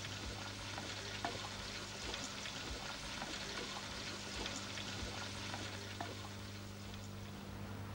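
Crackly hiss with scattered faint clicks over a steady low electrical hum, the noise floor of a worn videotape soundtrack with no programme sound. The lower hum line drops out shortly before the end.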